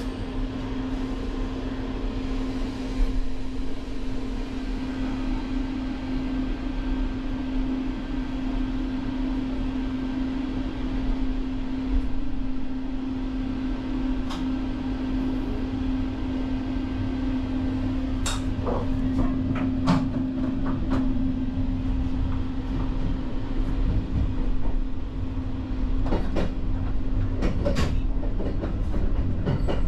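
Inside a JR Shikoku 8600 series electric train: a steady electrical hum over a low rumble, with scattered sharp clicks and knocks about halfway through and again near the end.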